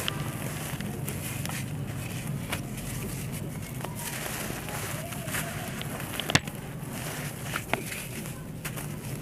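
Dry, molded cylinder of red sand crumbled apart by hand: a gritty crunching with loose grains and clumps falling, broken by a sharp crack about six seconds in.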